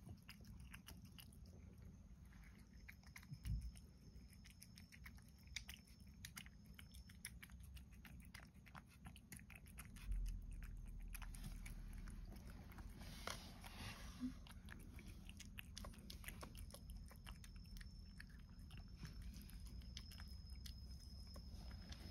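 A cat chewing and eating soft food of carrot and tuna from a dish: a faint, quick run of small clicks and smacks. A low steady hum joins about halfway through.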